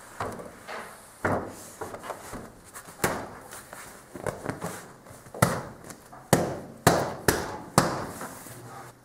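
A string of irregular sharp knocks and clatters, with the strongest four coming about half a second apart from about six to eight seconds in.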